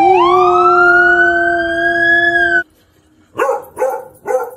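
A long, loud wail gliding down and then slowly up in pitch over a steady lower tone, which cuts off suddenly after about two and a half seconds. Then a beagle barks three times, about half a second apart.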